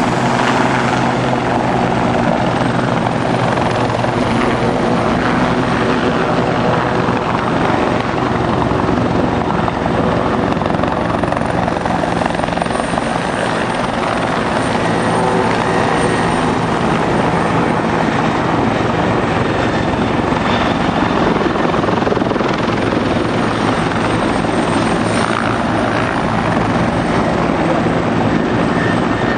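Several helicopters, a Bell 412 and a Westland Lynx among them, flying low past: a loud, steady din of rotors and turbines with a faint high turbine whine in the middle.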